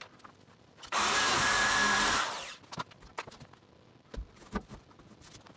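A workshop tool hisses for about a second and a half, then a few light clicks and knocks follow.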